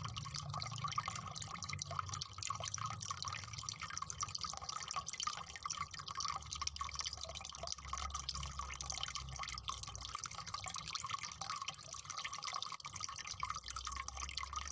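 Soft, wet little clicks and drips as a hand handles a water-swollen gel toy starfish over a bowl of water.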